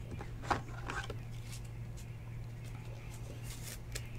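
Faint scrapes and light clicks of a trading card being handled and slid into a rigid plastic toploader, a couple of them about half a second and one second in, over a steady low hum.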